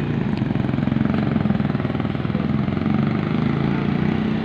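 Motorcycle engine idling steadily, with an even, fast chug.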